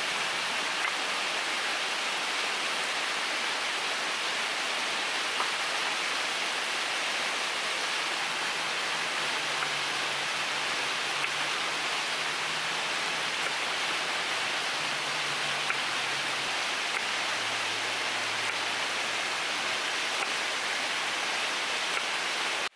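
Steady rushing of a river, with a few faint taps of a knife on a wooden cutting board as a bell pepper is sliced.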